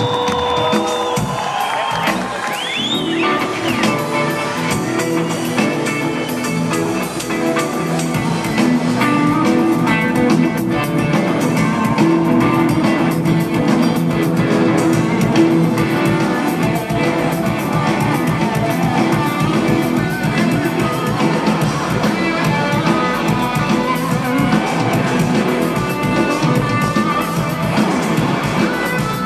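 Rock power trio playing live: electric guitar, bass guitar and drum kit together, loud and dense with a steady drum beat, heard from within the audience.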